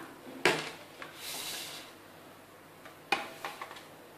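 Bone-in beef pieces being set into an aluminium pressure cooker: two knocks, one about half a second in and another about three seconds in followed by a few small clicks, with a brief rustle about a second in.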